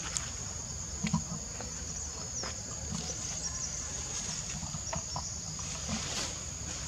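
Outdoor forest ambience: a steady high-pitched insect drone over a low background rumble, with a few faint clicks and rustles.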